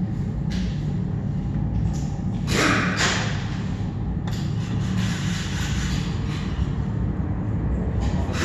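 Cordless drill/driver run in short bursts to drive in the oil pan (sump) bolts while the pan is being refitted, the loudest burst about two and a half seconds in and a longer run from about four seconds on. A steady low hum runs underneath.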